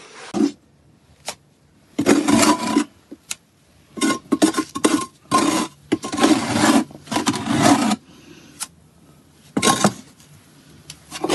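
Steel trowel scraping wet cement mortar out of a plastic bucket and spreading it over stones, in a run of short scrapes with pauses between and a few small knocks.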